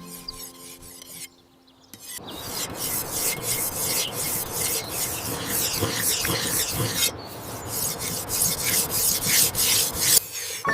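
Rough, rapid scraping strokes running on for about eight seconds, starting after a brief pause near the start and stopping shortly before the end.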